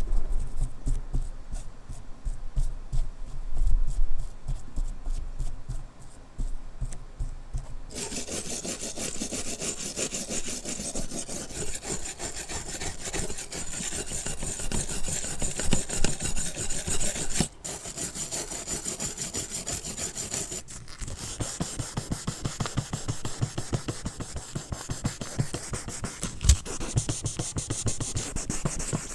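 A brush dabbing paint stripper onto a diecast Ferrari F50 body, a run of low taps. From about eight seconds in, a brass wire brush scrubs the softened red paint off the metal. After a short break, a sanding sponge rubs the bare metal body in steady back-and-forth strokes.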